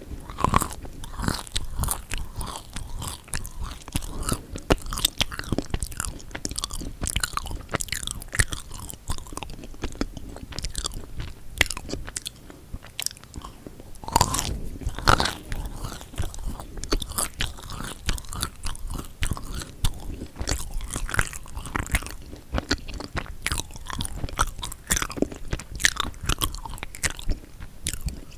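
Close-miked chewing and biting of chocolate-coated marshmallow cookies: a steady stream of soft, sticky, wet mouth sounds with crackles of the chocolate shell.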